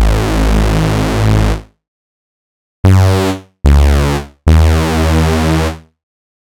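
Vectra software synthesizer playing a detuned unison stack patch: four dense, bass-heavy notes, a long one, two short ones, then another long one, each cut off into silence.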